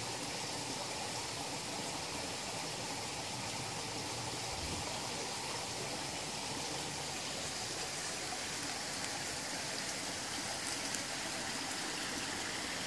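Running water in a koi pond, a steady, even rush.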